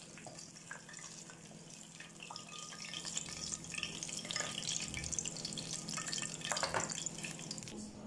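Hot frying oil sizzling and crackling, growing busier partway through, with a few light clicks of metal tongs as the fried fish is set on the platter, over a steady low hum.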